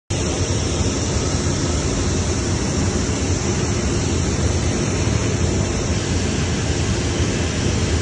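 Cabin noise of a light fixed-wing aircraft in flight: a steady, loud drone of engine and rushing air with no change in pitch.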